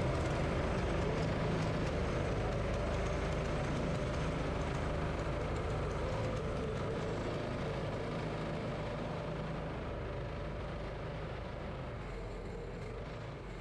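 Small go-kart engines running at low speed as the karts roll slowly through the pits, a steady drone that slowly fades out.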